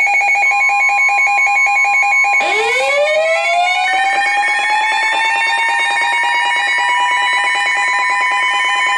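Several electronic alert tones layered over one another. A fast-pulsing alarm tone runs throughout, a steady tone joins about half a second in, and from about two and a half seconds in a siren winds up from a low pitch and settles into a steady wail.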